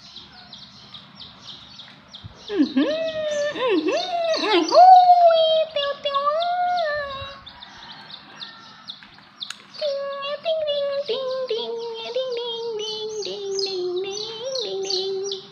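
Baby chicks peeping rapidly, several short high chirps a second, throughout. A louder long wavering voice-like call, rising and falling, comes in from about two and a half seconds to seven, and a lower, slowly falling one from about ten seconds to near the end.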